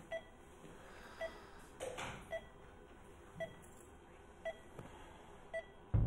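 Hospital patient monitor beeping steadily, one short beep about every second, with a soft rustle of movement about two seconds in.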